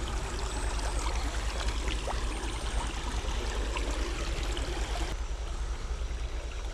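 Water of a small creek running steadily over its bed, a continuous rushing babble.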